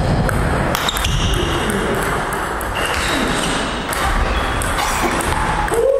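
Table tennis rally: a few sharp clicks of the ball struck with paddles and bouncing on the table, over a steady hall noise.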